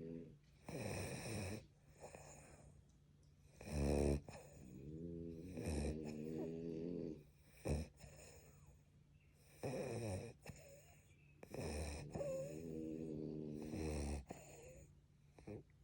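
French bulldogs snoring in their sleep, the snore typical of the breed's short, flat-faced airway: a run of snoring breaths about every two seconds, some long with a steady pitch, others short and noisy.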